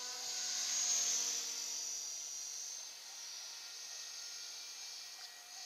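Art-Tech Falcon 450 FBL radio-controlled electric helicopter in flight: a steady high whine from its brushless motor and spinning rotor, loudest about a second in, then easing off.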